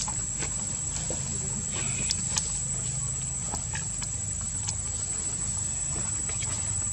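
Insects droning steadily at one high pitch over a low rumble, with a few faint ticks and rustles.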